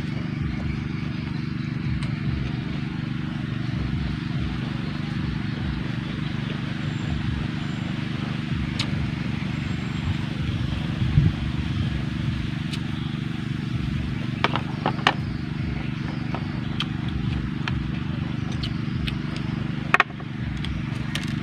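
A steady low mechanical hum runs throughout, with chewing and a few sharp clicks of a spoon and chopsticks against the dishes.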